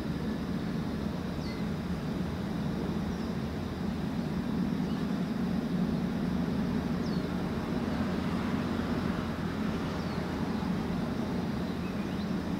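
Steady low drone of a small container ship's diesel engine, swelling slightly midway, with a few faint short high chirps now and then.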